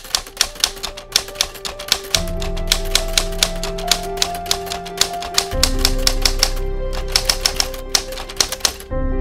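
Typewriter sound effect: rapid runs of keystroke clicks with a short break, stopping shortly before the end. Behind them, background music holds sustained chords that change twice.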